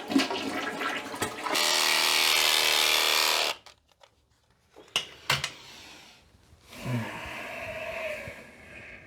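Toilet flushing, ending in a loud, steady, buzzing motor-driven rush that lasts about two seconds and cuts off sharply. A couple of knocks follow.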